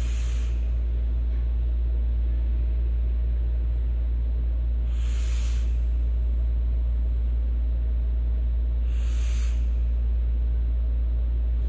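A person vaping an e-cigarette: three short breathy hisses of drawing on the device and blowing out vapour, about four to five seconds apart, over a steady low hum.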